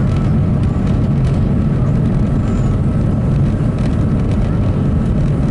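Airbus A380 engines and airflow heard inside the passenger cabin: a loud, steady low rumble with a faint steady high tone above it.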